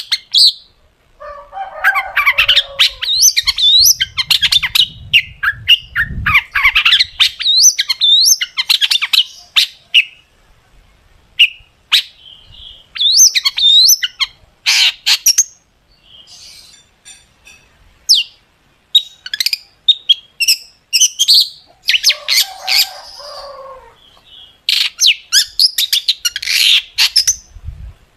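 Long-tailed shrike (cendet) singing a fast, loud run of sharp, piercing whistled notes and quick rising and falling glides, packed with mimicked phrases. Harsh, scratchy chatter breaks in about two seconds in and again a little past twenty seconds, and the song thins briefly past the middle.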